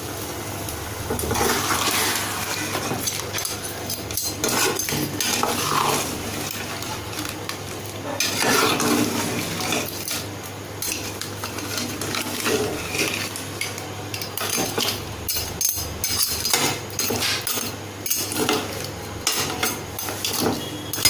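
A spoon stirring crab masala in a cooking pot, clinking and scraping against the pan again and again, over a faint sizzle.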